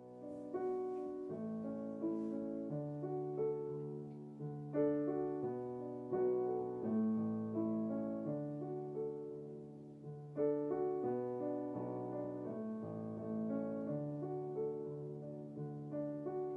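Solo Kawai digital piano playing a slow, gentle passage of chords and melody, each chord struck and left to ring and fade.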